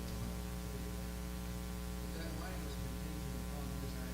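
Steady electrical mains hum with a stack of overtones on the recording. A faint, distant voice is heard briefly about halfway through.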